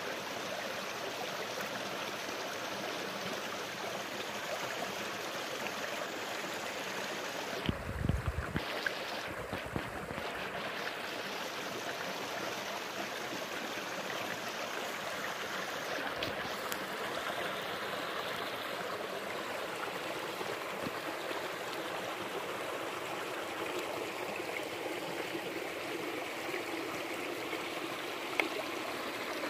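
A stream running steadily, an even rush of water. A few dull low bumps come about eight and ten seconds in.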